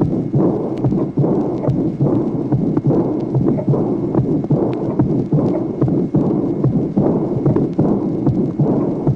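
Recorded heart sounds of aortic regurgitation: a loud, drum-like aortic second sound (an 'éclat en tambour') marks the start of a soft, blowing diastolic murmur. The beats repeat as short knocks over a steady rushing noise.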